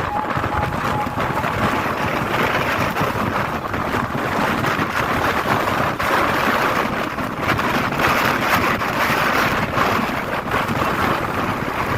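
Strong snowstorm wind blowing hard against the microphone as a steady, loud rush that swells and eases.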